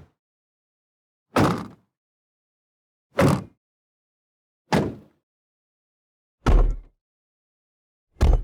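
Car, van and truck doors being slammed shut one after another, five separate slams with complete silence between them, about one every one and a half to two seconds. The fourth slam has the deepest, heaviest thud.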